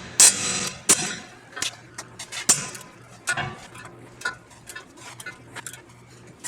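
Metal hand tools clanking and clicking: a ratcheting breaker bar and socket being fitted and worked on a tight ball joint nut. One loud ringing clank comes near the start, then a run of irregular sharp clicks and knocks.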